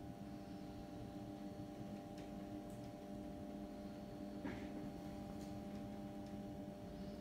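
A steady low hum of room tone with several fixed pitches, and a few faint clicks, the strongest about four and a half seconds in.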